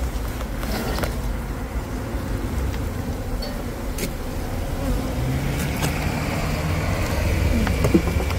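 Honey bees buzzing in numbers around an opened wall hive, a steady drone. About halfway through, a low engine hum from a motor vehicle comes in and grows louder, with a few light clicks of handling.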